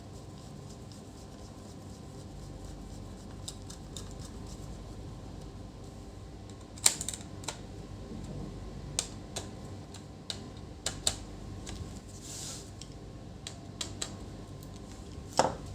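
Laptop being handled during reassembly: scattered sharp clicks and taps of its parts and tools, most of them in the second half, over a faint steady hum.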